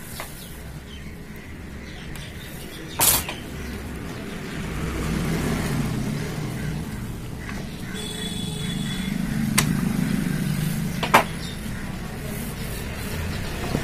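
Low rumble of road traffic that swells twice, with three sharp clicks from work on a TV circuit board and a brief high tone near the middle.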